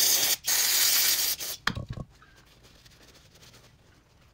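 Spray can hissing in two long bursts as master cylinder parts are sprayed clean, the second stopping about a second and a half in. A short clatter follows near two seconds.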